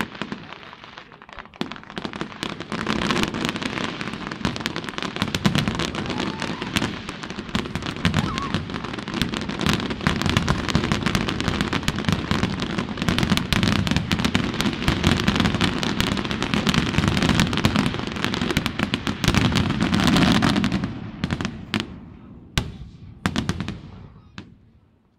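Fireworks display: a dense, continuous barrage of aerial shell bangs and crackle. About twenty-one seconds in it thins to a few separate bangs, then dies away.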